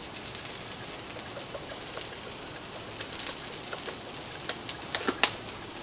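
Chopped onion and green chili peppers frying on a Blackstone flat-top griddle: a steady sizzling hiss with scattered crackles, a few sharper pops near the end.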